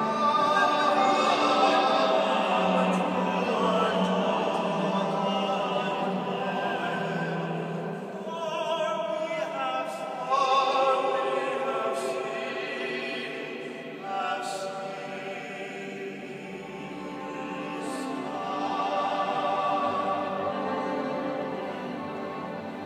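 Male operatic singing with orchestral accompaniment, carrying a long reverberation from a large church interior. It is loudest at the start and softer in the middle.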